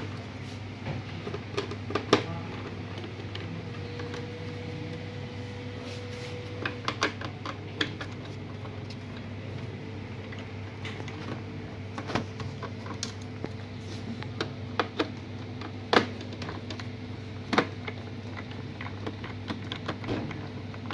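Screwdriver working the screws of a laser printer's plastic scanner frame: scattered sharp clicks and small knocks of metal on screws and plastic, a few louder, over a steady background hum.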